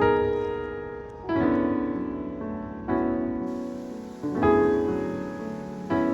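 Background piano music: slow, soft chords struck about every second and a half, each ringing out and fading before the next.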